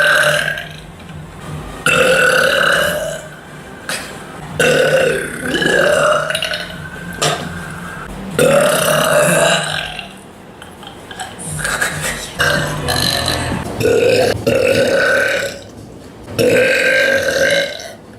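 A young woman burping loudly again and again: a run of about eight long belches, each around a second, coming roughly every two seconds.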